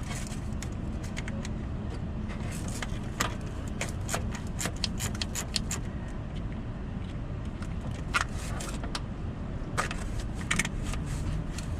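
Hand tools on a starter's nuts and bolts: irregular runs of sharp metallic clicks and clinks as the fasteners are loosened, over a steady low hum.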